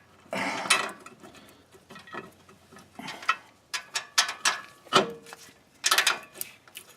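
Metal parts and tools clinking and clattering in irregular bursts: loose axle hardware being handled during axle installation.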